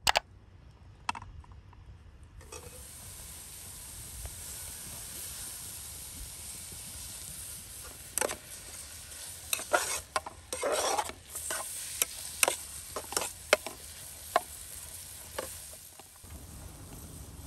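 Chopped onions frying in a pot over a wood fire, with a steady sizzle starting a couple of seconds in. A ladle scrapes and knocks against the pot as they are stirred, most often between about 8 and 15 seconds in.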